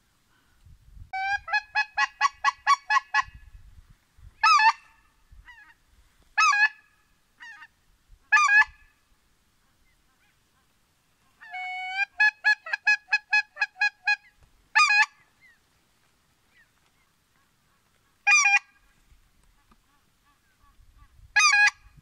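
Goose call blown by a hunter: a fast run of about ten short honks, then single honks a couple of seconds apart, then a second fast run about halfway through, followed by a few more single honks.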